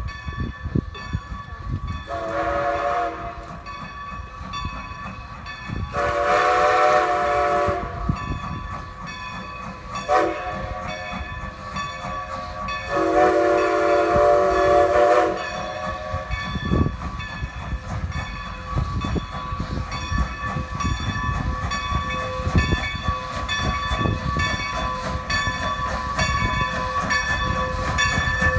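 Strasburg Rail Road No. 90, a 2-10-0 Decapod steam locomotive, blowing its steam whistle in four blasts as it pulls its passenger train into the yard: long, long, short, long, the pattern of a grade-crossing signal. Its bell rings steadily throughout, over the low rumble of the train drawing closer.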